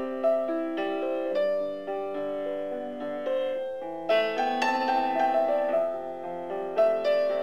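Background piano music: a melody over chords, each note struck and fading.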